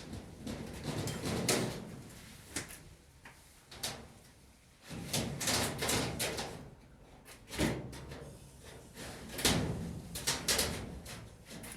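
Irregular knocks, clatter and sliding sounds like drawers, doors or lids being opened and shut, in a small room, with busier stretches of handling a few times.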